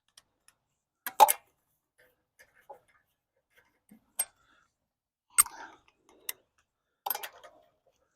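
Sharp metallic clicks and clinks, about five of them a second or so apart, as wheel bolts are fitted by hand on a van wheel hub.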